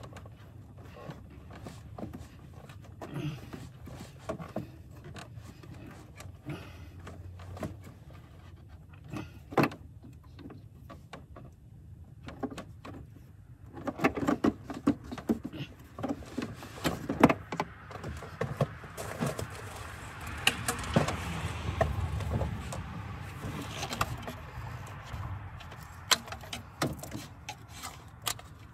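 Hand work in a car's engine bay with the engine off: scattered clicks and light knocks of parts and tools being handled, growing into busier clattering about halfway through and a few seconds of rustling and scraping after that.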